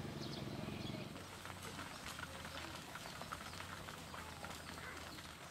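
Small motorbike engine running low for about the first second, then dropping away, leaving faint scattered clicks of water buffalo hooves on asphalt as a herd walks along the road.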